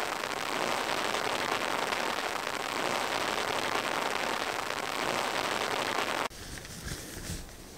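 Steady rain falling on a tarp tent shelter, an even hiss that cuts off suddenly about six seconds in, leaving a quieter background with a couple of soft low thumps.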